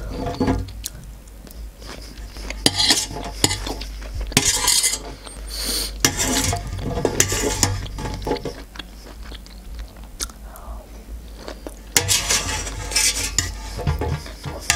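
Metal fork scraping and clinking on a steel serving tray as it gathers and scoops corn kernels, in irregular strokes.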